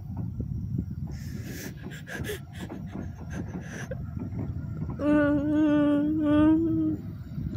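A woman crying: ragged, breathy sobs, then a long wavering wail about five seconds in, broken once and held for about two seconds, the loudest sound. A steady low rumble runs underneath.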